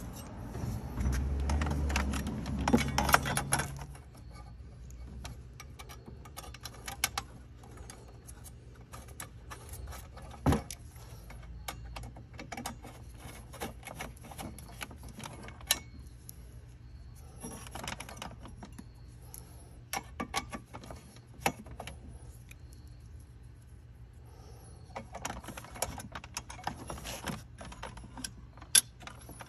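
Plastic wiring connectors and harness being handled and fitted during a car stereo install: scattered clicks, ticks and rattles, with a louder low rumble and clatter in the first few seconds and a few sharper single clicks later on.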